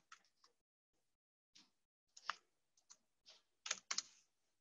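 Faint typing on a computer keyboard: irregular single keystrokes, a few of them louder towards the end.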